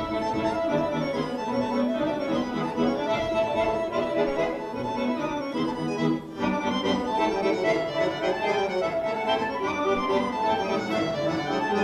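Accordion playing Serbian folk dance music for a kolo from the Negotin region, with a brief break in the sound about six seconds in.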